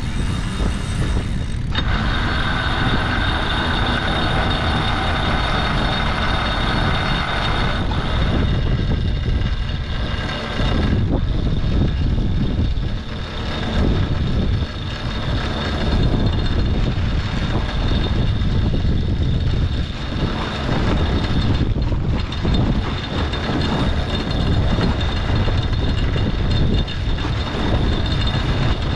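Steady rumbling wind and water noise aboard a racing sailboat under way.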